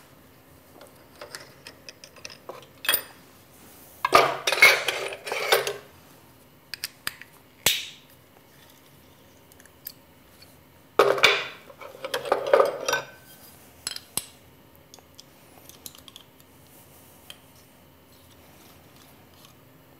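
Metal torch-holder parts and hex keys clinking and clattering as they are handled and set down, in scattered bursts: a short one about 3 seconds in, a longer run around 4 to 6 seconds, another around 11 to 13 seconds, and a few light ticks between, over a faint steady hum.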